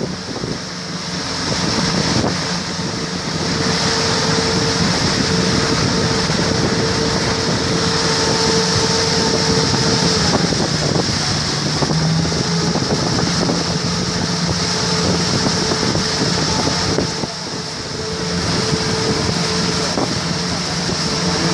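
Small motorboat's engine running steadily under way: a steady hum under the rush of water along the hull and wind on the microphone. The sound drops briefly about 17 seconds in, then comes back up.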